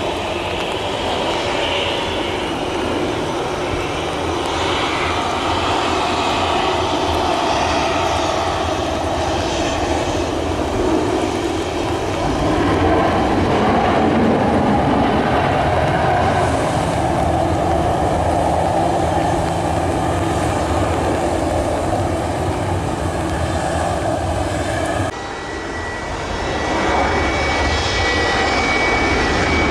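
An MD-80-series airliner's rear-mounted Pratt & Whitney JT8D jet engines running through final approach and touchdown on a wet runway, a steady roar that grows louder about halfway through. About 25 s in it breaks off sharply, and an Airbus A320's jet engines take over with a steady high whine as it rolls down the runway.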